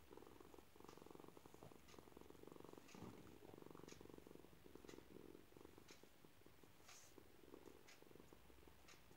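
Domestic tabby cat purring softly, the purr swelling and fading in pulses about a second long. A few faint ticks are heard over it.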